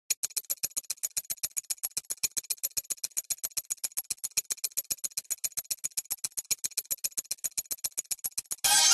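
Rapid, perfectly even ticking, about eight sharp ticks a second, like a clock or timer sound effect. Music with accordion and strings comes in just before the end.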